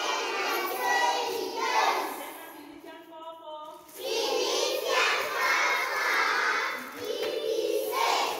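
A class of young children chanting a word together in unison, repeating it after their teacher. In a short gap about three seconds in, the teacher says the word alone, and then the class chants it back twice.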